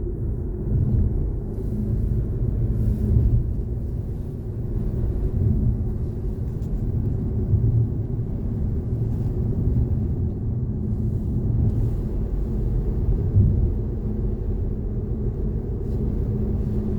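Steady low road and engine rumble heard inside a moving car.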